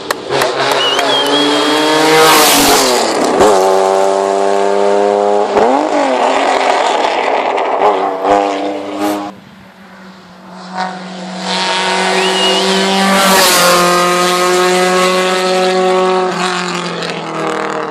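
Hill-climb race cars accelerating hard uphill, one after another. Each engine revs high and its pitch drops at every gear change as the car passes close by, and there is a short lull between the two cars about nine seconds in.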